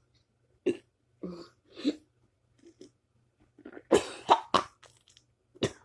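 A run of short throaty bursts from a person: a few single ones at first, then a louder quick cluster about four seconds in, and one more near the end.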